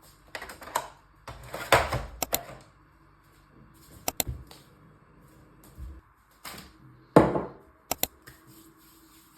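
Objects being handled in a small room: a string of sharp clicks and knocks, some in quick pairs, between short rustling scrapes.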